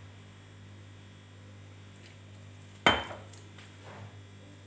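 Sharp glass clink with a short ring about three seconds in, followed by a few lighter taps: the olive-oil bottle being set down after pouring and hands handling the glass jar of harissa.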